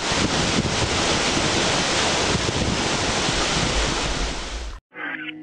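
Waterfall rushing into a rock pool, a steady noise of falling water with wind rumbling on the microphone. It cuts off suddenly near the end, and music starts.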